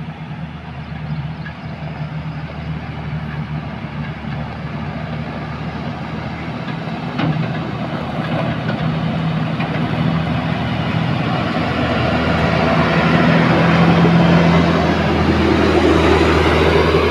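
Diesel engines of a JCB 432 wheel loader and then a dump truck driving on a gravel road, with a steady low engine note. A short knock comes about seven seconds in, and the sound grows louder over the second half as the truck draws near.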